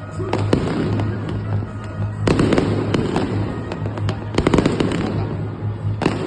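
Fireworks going off in rapid volleys of sharp cracks and bangs, bunched in dense crackling clusters about two seconds in, around four and a half seconds, and again near the end.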